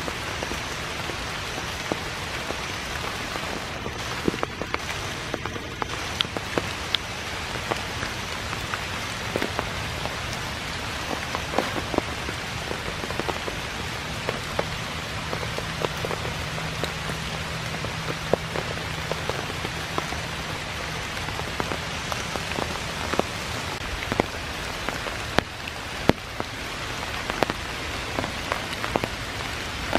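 Rain falling on wet leaves and the forest floor: a steady hiss with frequent sharp taps of single drops landing close by.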